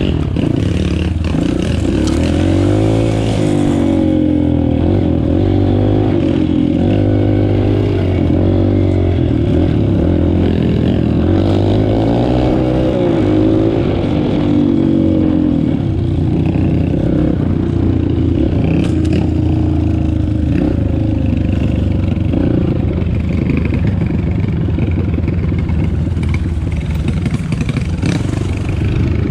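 Motorcycle engine running, its pitch rising and falling as the throttle opens and closes, then holding steadier in the second half.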